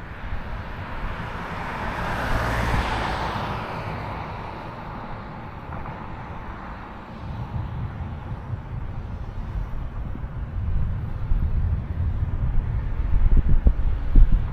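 A car passing on the road, its tyre hiss swelling to a peak a couple of seconds in and then fading away. Wind buffets the microphone throughout with a low rumble, gusting harder near the end.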